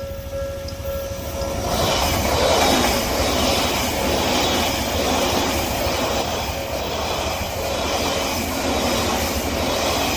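Odakyu electric train passing over a level crossing, arriving about two seconds in with a rhythmic clatter of wheels over the rail joints. The crossing's warning bell keeps ringing underneath.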